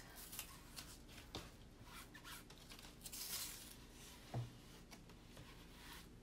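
Faint rubbing and rustling of a hand smoothing a plastic adhesive stencil transfer down onto a board, with a few light clicks as its edge is lifted and pressed back.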